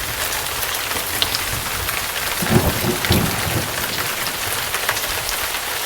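Rain and thunder sound effect: steady, heavy rain hiss, with a low rumble of thunder swelling up about halfway through.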